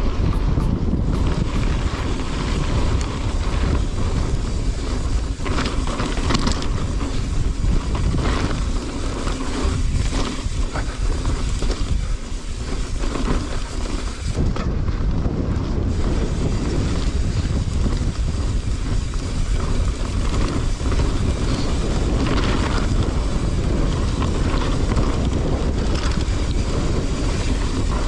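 Wind buffeting a GoPro action camera's microphone while mountain biking, over a steady rumble of tyres on a rough track, with scattered knocks and rattles from the bike.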